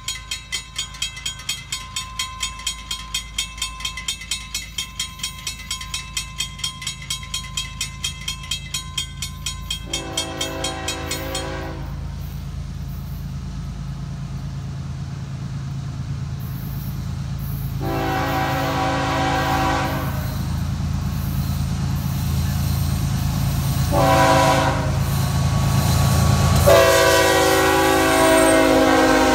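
A grade-crossing bell rings rapidly for the first ten seconds or so. Then a diesel locomotive horn sounds two long blasts, a short one and a long one, the standard signal for approaching a grade crossing. Under it the low rumble of Florida East Coast GE ES44C4 locomotives grows louder as the intermodal train nears and passes.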